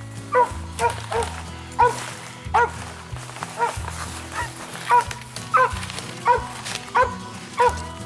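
A hunting dog barking over and over in a steady rhythm, a bark about every half second to second, with background music underneath.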